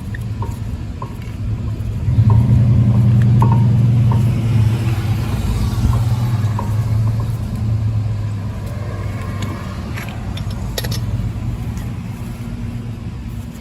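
Steady low hum of a running engine that swells about two seconds in and eases off later, with faint light ticks about twice a second in the first half.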